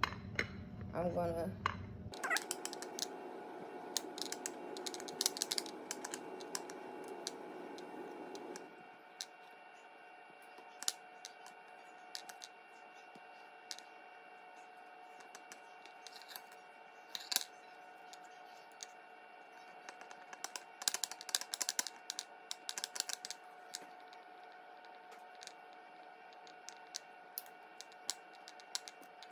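Scattered clicks and taps of a metal fork against a ceramic plate as the edges of folded dough hand pies are crimped. The clicks come in irregular clusters rather than a steady rhythm, over a faint steady hum.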